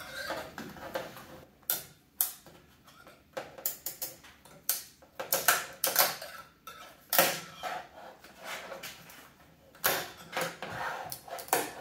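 Irregular clicks and scrapes of a scraper prying LED backlight strips off a TV's sheet-metal back panel, breaking them loose from their double-sided tape.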